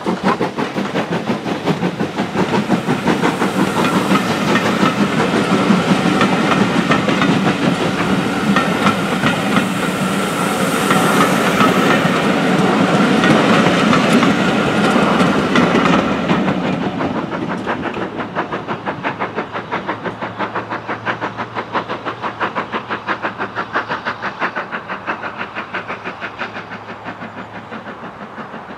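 BR Standard Class 5 4-6-0 steam locomotive 73082 passing with its train: a rapid, steady beat of exhaust and carriage wheels clicking over the rail joints. After about sixteen seconds the sound grows steadily fainter as the train draws away.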